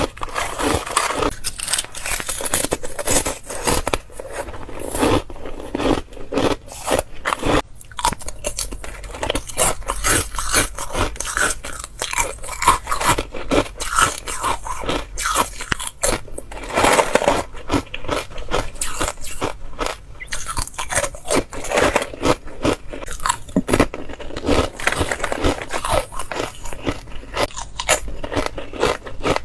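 Close-miked biting and crunching of chip ice, a rapid run of irregular cracks and crunches as the ice pieces are bitten through.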